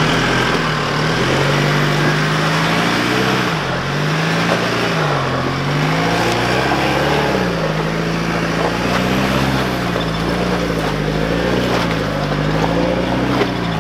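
Four-wheel-drive ute's engine under load, revving up and easing off again and again as it crawls up rock steps.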